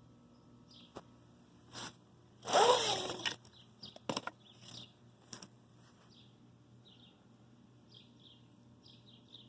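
Small birds chirping repeatedly over a steady low hum. A loud, brief noisy sound with a falling pitch comes about two and a half seconds in, and a few sharp clicks follow.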